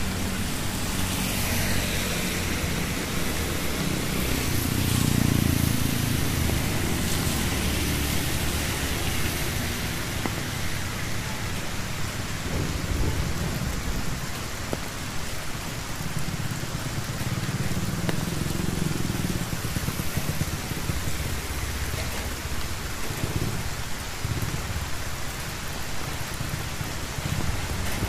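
Steady rain falling on a wet street. A low rumble of vehicles on the wet road swells twice, about a fifth of the way in and again past the middle.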